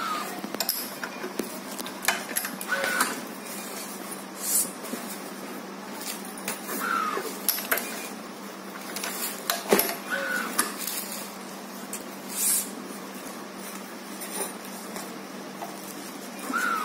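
Badminton racket being strung on a stringing machine: sharp clicks of the clamps and frame handling, short high-pitched squeaks as the string is pulled through the frame, and a couple of brief noisy runs, about four and twelve seconds in.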